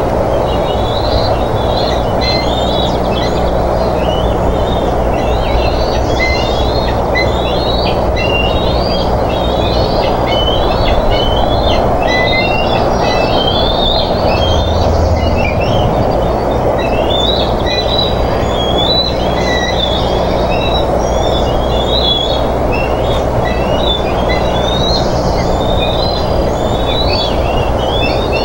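Rapid, high chittering bird calls that repeat and overlap throughout, over a steady rushing background noise and a low electrical hum.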